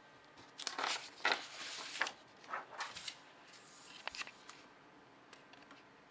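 Handling noise from a Logitech G703 mouse: several short rustling scrapes in the first three seconds, then a few separate sharp clicks.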